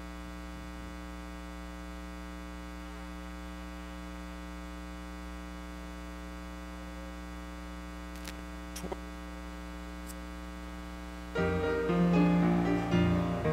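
Steady electrical mains hum, with a few faint clicks about eight to ten seconds in. About eleven seconds in, instrumental music starts and becomes the loudest sound, the accompaniment opening the call to worship.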